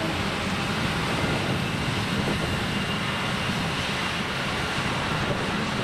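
Jet engines of a taxiing Airbus A350 running at low taxi power: a steady, even rumble with no change in level.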